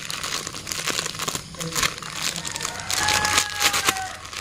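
Thin plastic bag crinkling and rustling in irregular handfuls as a moist bait dough is kneaded inside it by hand.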